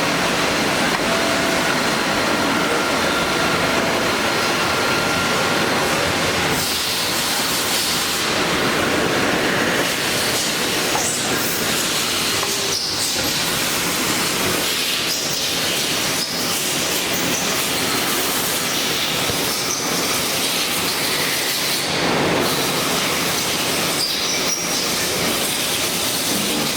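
FAMAR ERGO 210 vertical lathe running: a steady mechanical rumble with a hiss and faint steady tones, unbroken throughout.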